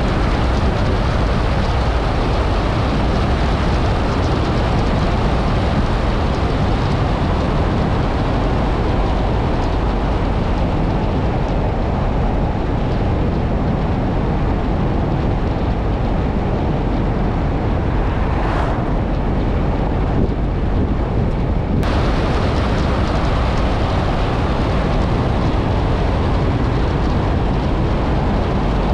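Steady wind rush on the microphone over tyre and road noise from a vehicle driving at speed on a narrow bitumen road. The hiss dulls for a few seconds past the middle and comes back abruptly.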